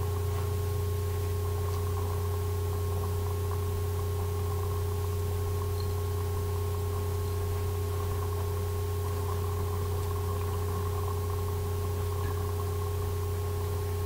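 Steady low hum with faint higher steady tones over a light hiss, unchanging throughout, with no distinct events.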